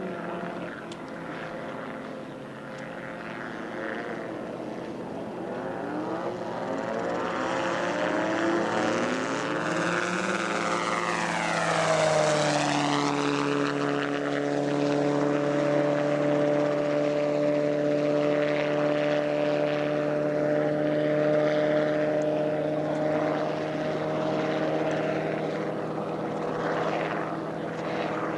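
Homemade helicopter's Subaru engine and rotor running up: the pitch climbs over the first dozen seconds, then holds steady at high revs.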